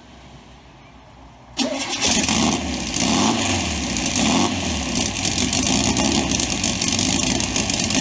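Turbocharged air-cooled VW Beetle engine starting about one and a half seconds in, then running loudly and steadily.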